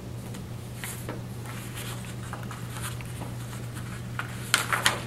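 Paper being handled on a desk: soft rustles, then a burst of crisp crackles near the end as a sheet is picked up, over a steady low hum.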